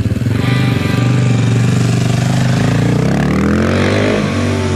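Pocket bike engine running with a fast putter and a steady pitch, then revving up with a rising pitch about three seconds in and dropping back near the end.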